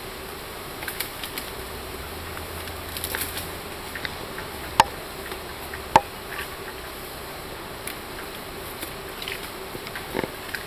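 A long bamboo pole being handled in undergrowth: scattered light rustles and clicks, with two sharp knocks about five and six seconds in, over a steady background hiss.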